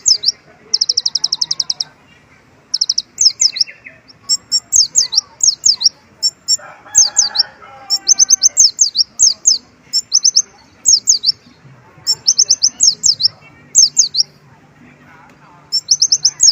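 Kolibri ninja, a sunbird kept as a songbird, singing a run of high rapid trills and repeated sharp sweeping notes in quick phrases, mixed with mimicked white-eye (pleci) song.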